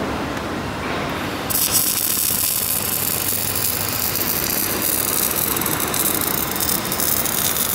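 Electric arc welding with a hand-held wire-feed (MIG-type) gun on a steel plate seam. The arc starts about a second and a half in and then crackles and sizzles steadily.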